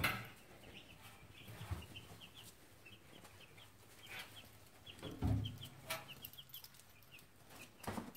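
Chickens clucking softly, a stream of short, high notes, with a sharp knock at the start and a dull thump about five seconds in.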